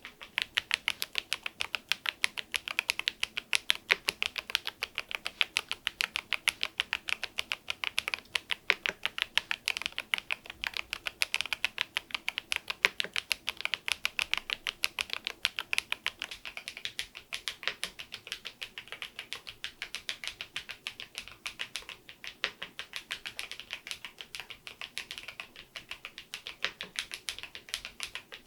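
Fast, continuous typing on a KEYSME AIM04 HE aluminium-cased magnetic-switch keyboard fitted with swapped keycaps: a steady stream of crisp keystroke clacks, several a second.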